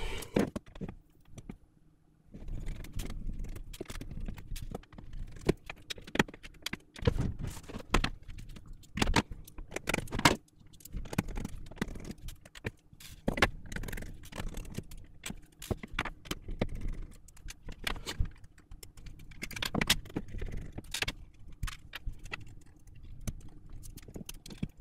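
Sped-up, rapid, irregular clicks and clatter of small plastic and metal Xbox Elite Series 2 controller parts and tools being handled as the components are moved into a new shell, over a faint steady hum.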